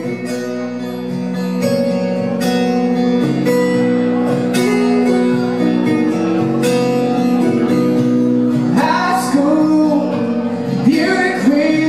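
Live acoustic band music: acoustic guitars playing a steady instrumental passage between sung lines, with a male voice coming back in near the end.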